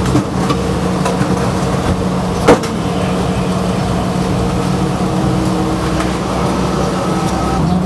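Steady mechanical hum with a hiss over it, and one sharp knock about two and a half seconds in.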